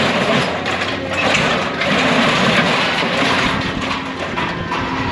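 Scrap metal clattering and scraping as a material handler's grapple digs into a pile and closes on a load, over the steady run of the machine's engine and hydraulics.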